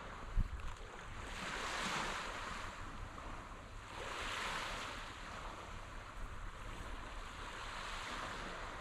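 Small waves washing onto a sandy beach, swelling twice, with wind rumbling on the microphone. A brief low thump about half a second in.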